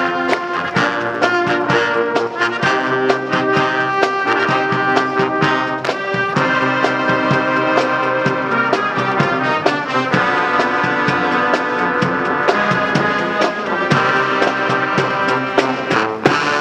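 A brass band playing an upbeat tune over a steady drum beat.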